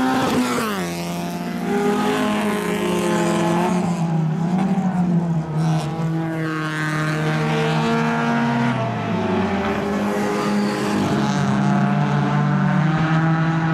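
Rallycross race cars' engines running hard on the track, with more than one engine audible at once. The engine pitch falls sharply about half a second in, then rises and falls again. One engine sinks steadily in pitch between about eight and ten seconds in.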